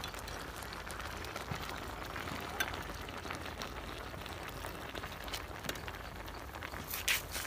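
A large aluminium pot of soup simmering, with a steady bubbling hiss and scattered small pops. Near the end, a metal ladle clatters against the pot.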